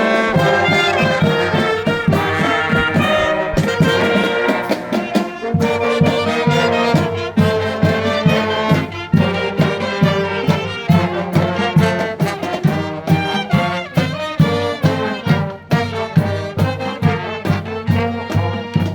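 Marching band playing, with trumpets and trombones carrying sustained chords and melody. A steady beat joins more strongly about six seconds in.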